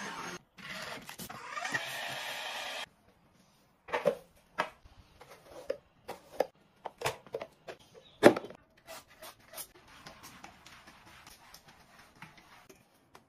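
A steady rushing noise that stops about three seconds in, then a run of irregular sharp plastic clicks and knocks from a broom and dustpan being handled, the loudest about eight seconds in.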